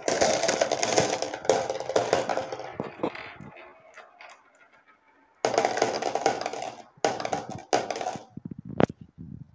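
Glass marbles rolling and clattering down a marble run of white half-pipe channels, clicking against the track and each other. The rattling fades out around four seconds in, returns in three short bursts from about five and a half seconds, and ends in a few scattered clicks.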